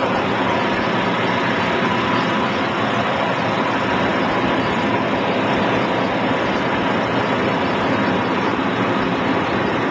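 Piper Super Cub floatplane's engine and propeller running steadily.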